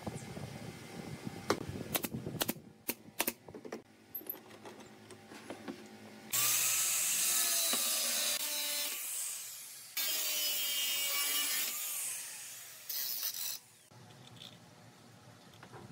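Sharp clicks and knocks of wood and clamp parts being handled, then a handheld angle grinder run three times in loud bursts of grinding, throwing sparks as it grinds metal at the edge of the wooden frame. Near the end, faint small clicks as a nut is turned onto a threaded steel rod.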